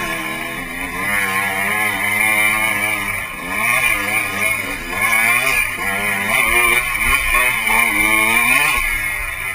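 Dirt bike engine running hard on a trail ride, its pitch rising and falling over and over as the throttle is opened and closed.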